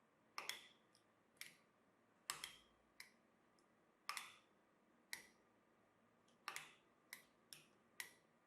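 About ten sharp clicks and light knocks at irregular intervals, each with a short ringing tail: small hard objects being handled and set down.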